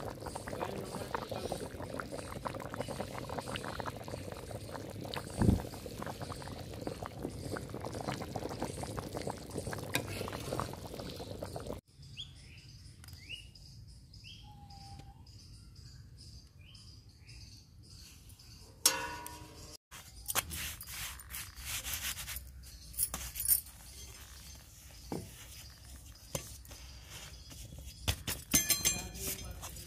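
Curry bubbling hard in a wide iron kadhai over a wood fire, with one sharp knock about five seconds in. After a cut, birds chirp over a quieter background. In the last third come light taps and pats of a roti being cooked by hand on a tawa.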